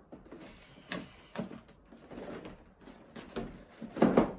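A large cardboard box being handled and shifted on a wooden table as it is opened: a series of short scrapes and rustles of cardboard, the loudest near the end.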